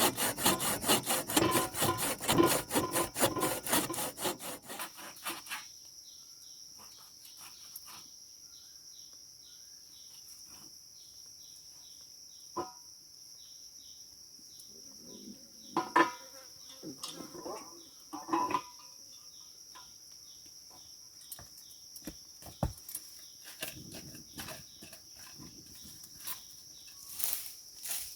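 Hand saw cutting wood in quick, even strokes, stopping about five seconds in. After that, a steady high-pitched insect buzz with scattered clicks and knocks of wood being handled, the loudest a little past the middle.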